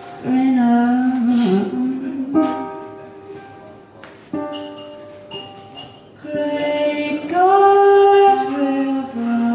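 Woman singing long held, wordless notes over a ukulele, which sounds a few spaced strummed chords.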